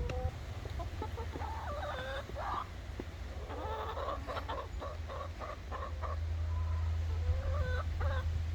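Chickens clucking, with a quick run of short calls around the middle, over a steady low rumble.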